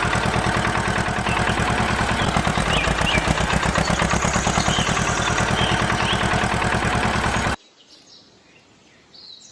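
An engine running steadily with a fast, even beat, with birds chirping over it; it cuts off abruptly near the end, leaving only faint chirps.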